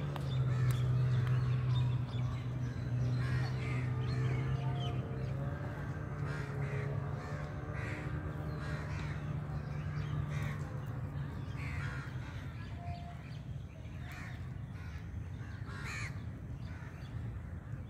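Birds calling repeatedly, short harsh calls every second or two, over a steady low hum that weakens about two-thirds of the way through.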